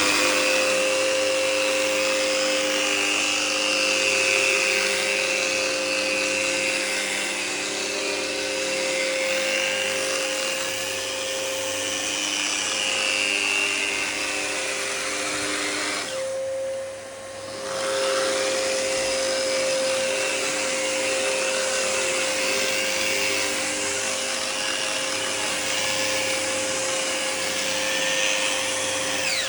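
Electric wall sander running steadily with a constant motor whine, its abrasive pad hissing against the wall surface. About halfway through, the scratchy sanding noise drops out for roughly a second while the motor keeps running, then returns.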